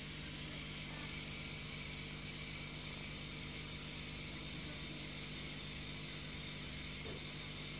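Aquarium filter running: a steady low hum with a watery hiss, and a single light click about half a second in.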